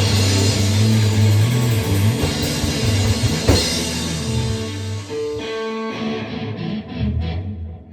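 Rock music on guitar and drum kit, with a sharp hit about three and a half seconds in, thinning out and dying away near the end.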